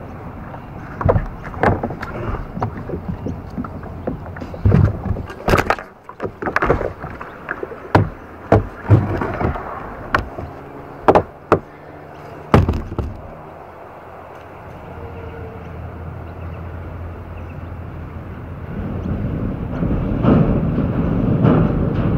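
Irregular knocks and thuds of a kayak paddle and plastic hull being bumped and handled at the river's edge, a dozen or so sharp strikes over the first half, then a steadier rushing noise that builds in the last few seconds.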